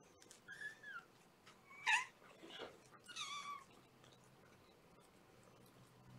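Young kittens mewing: about four short, high-pitched mews in the first three and a half seconds, the loudest about two seconds in, then quiet.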